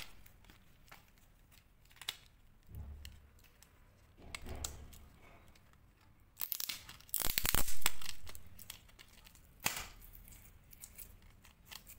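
A memory card's paper and plastic packet being torn open and crinkled by hand: short scattered rustles and clicks, with one longer, louder tear about six and a half seconds in.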